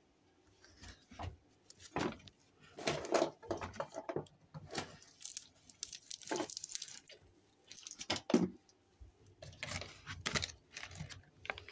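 Handling noise as plush toys are picked up and moved about: irregular rustling and soft knocks in a string of short bursts.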